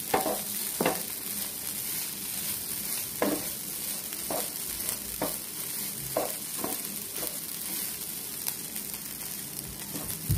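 Spatula stirring chopped bottle-gourd-peel sabzi in a nonstick pan on the heat, with a short scrape against the pan about every second or so over a steady hiss of the food frying.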